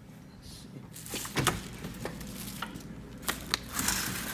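Knocks, clatter and rustling of household items being moved by hand, a few sharp knocks then a rustle near the end, over a steady low hum from the running gas furnace.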